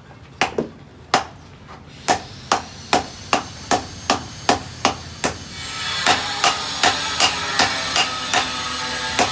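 Hand hammer forging a knife blade, striking metal on an anvil with ringing blows: a few scattered strikes, then a steady rhythm of about two and a half blows a second. About six seconds in, a steady rushing sound comes in underneath.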